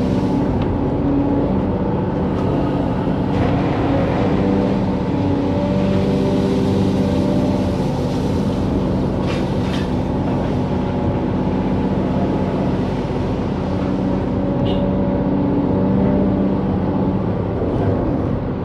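Excavator's diesel engine running steadily, its pitch shifting slightly as it works, with a brief knock about nine seconds in.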